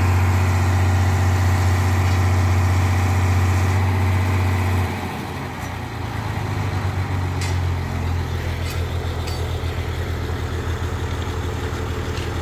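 Diesel engine of a rail-mounted track-relaying gantry machine running steadily, then dropping to a lower, evenly throbbing idle about five seconds in. A few light clicks come through a few seconds later.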